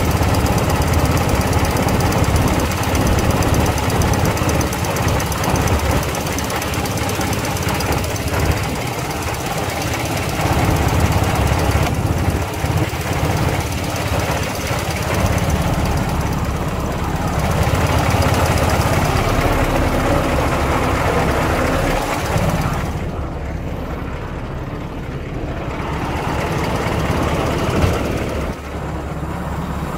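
The truck's Caterpillar diesel engine running steadily, heard close up at the engine bay.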